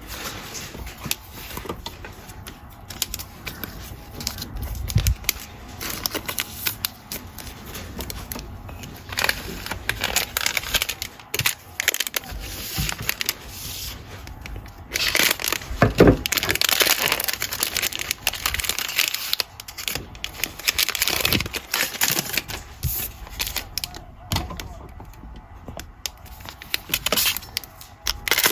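Trading card pack wrapper being torn open and crinkled, with cards being handled: an uneven run of crackles and rustles, busiest about halfway through.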